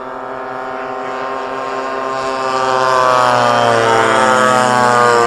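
A group of quarter-scale RC model warplanes' small two-stroke gasoline engines (26cc class) droning together in a low fly-by. They grow louder as they approach, and their pitch drops as they pass overhead.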